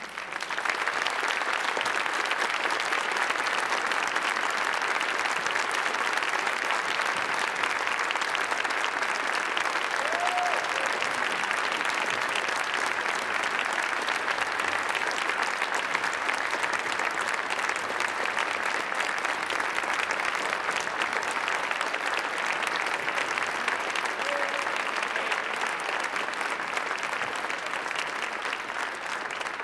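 A large audience applauding, starting abruptly and going on steadily and at length.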